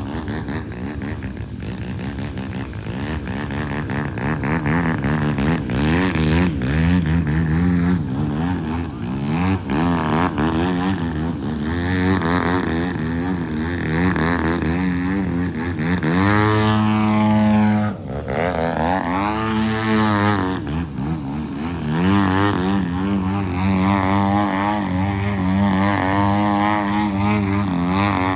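Radio-controlled aerobatic airplane's engine and propeller working through aerobatics, the pitch rising and falling with throttle changes and passes. About two-thirds of the way in it holds steady at high power for a couple of seconds, then is cut sharply and brought back up.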